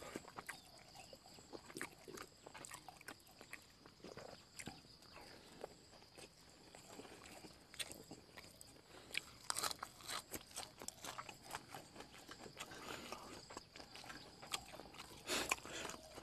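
Close-up eating sounds: a person chewing with wet mouth clicks and crunchy bites of fresh raw greens, in irregular bursts that are loudest about ten seconds in and again near the end. A faint steady high tone runs underneath.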